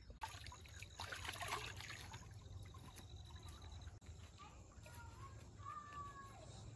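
Water splashing and trickling about a second in, as large fish stir in the shallow water of a concrete channel. A few short bird chirps come near the end.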